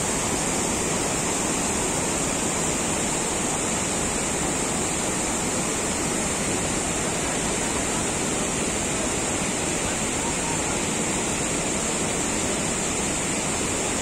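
Large waterfall and the rocky river rapids below it rushing steadily, an even, unbroken noise of falling and churning water.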